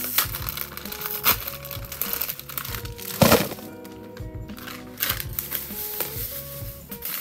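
Plastic candy wrappers crinkling as the individually wrapped candy bars are handled, with one loud crackle about three seconds in, over background music.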